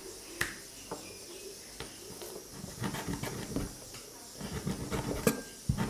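Meat cleaver cutting goat meat, skin and bone on a wooden chopping board: scattered sharp knocks and soft thuds, with the strongest knocks near the end.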